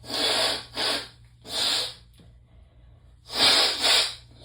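A person blowing their nose hard, clearing it after a Chhinkni snuff sneezing fit: three short rushes of air in quick succession, a pause, then a longer double blow about three seconds in.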